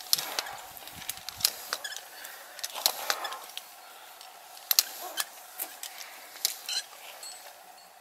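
Climbing gear and moves in a granite chimney: irregular sharp clicks of metal hardware and short scuffs against rock, with a loud pair of clicks about five seconds in.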